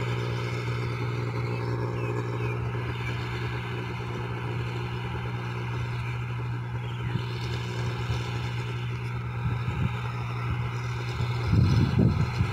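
Engine of a small rice harvester running steadily in the field, a low even drone. Gusts of wind buffet the microphone near the end.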